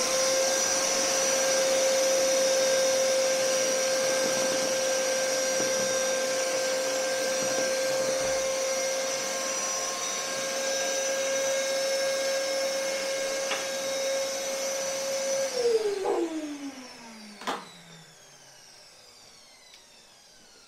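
Canister wet-and-dry vacuum cleaner running steadily with a high whine as its hose sucks up crumbs of dried expanding foam from a tabletop. About three-quarters of the way through it is switched off, and the motor winds down with a falling whine, ending in a click.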